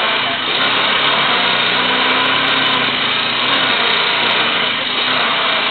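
An engine running steadily, a loud even noise with no change in pitch.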